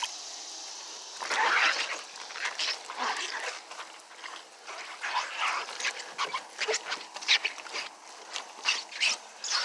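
Damp chamois being wiped across a car's wet painted door panels in short, irregular strokes, the loudest about a second and a half in.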